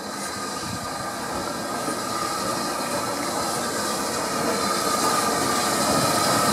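Steam locomotive, LNER Thompson B1 4-6-0 No. 61264, drawing its coaches slowly into the station, growing steadily louder as it nears. A steady high squeal from the wheels sits over the rumble of the train and strengthens toward the end.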